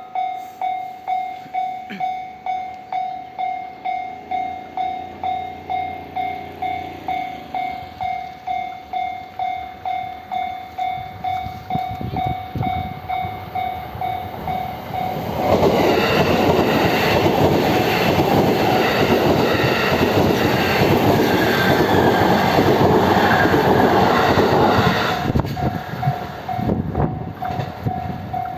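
Level-crossing warning bell ringing over and over, just under two dings a second. About halfway through a train passes over the crossing, its wheels clattering loudly for about ten seconds and drowning the bell, which is heard alone again near the end.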